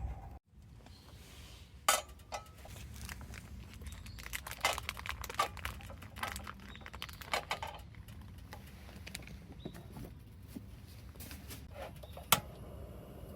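Clicks and light clatter of camp cooking gear being handled, with a sharp knock about two seconds in and another near the end.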